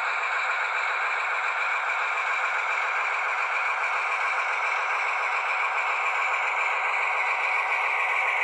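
Sound decoder in a Piko N-scale class 221 (V200.1) diesel locomotive model, playing steady diesel-engine running sound through its tiny loudspeaker. The sound is thin, with nothing in the bass.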